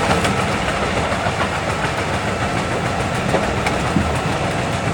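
Large wood chipper of about 800 horsepower running hard and chipping wood, a loud steady mechanical din with scattered sharp cracks as the branches are broken up.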